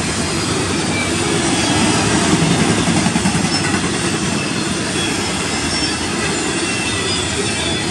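Double-stack intermodal container well cars rolling past: a steady rumble of steel wheels on the rails, with short faint wheel squeals now and then.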